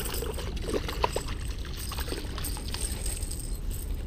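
Splashing and rustling in weedy shallows as a hooked bass is brought to the bank: a jumble of short crackles and swishes over a steady hiss.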